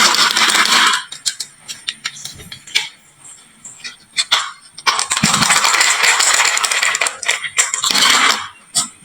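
Marbles rolling and clattering down a HABA marble run: two long stretches of rattling roll, about the first second and again from about five seconds in, with sharp clicks and clacks of marbles striking the track between them.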